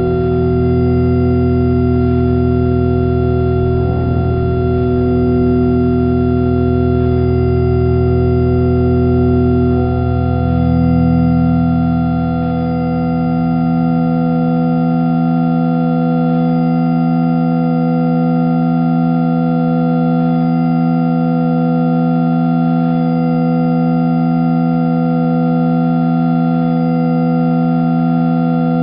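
Background music of sustained organ chords held for long stretches. The chord changes about ten seconds in, and the deep bass notes fade out a few seconds later, leaving a higher held chord.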